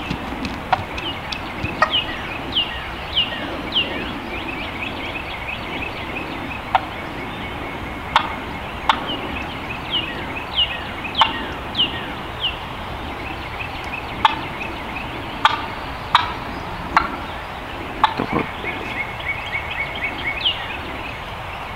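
Wild turkeys calling: runs of short, falling high-pitched notes, with sharp clicks scattered through.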